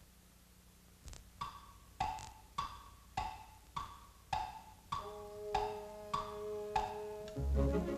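Orchestral cartoon music. After a near-silent first second, short percussive notes sound one at a time, about every half-second. Two held notes join about five seconds in, and the fuller band comes in near the end.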